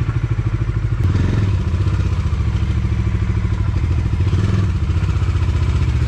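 Bajaj Dominar 400's single-cylinder engine running at low revs with a steady pulsing beat, a little louder from about a second in, as the bike is ridden slowly and brought to a stop. The owner takes the noise from the cylinder head for valve shim noise, an early stage of a recurring head complaint on BS4 Dominars.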